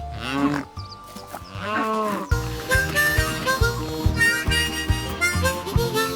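Two short, gliding animal-like calls in the first two seconds, then bright cartoon background music: a melody of held notes over a steady beat.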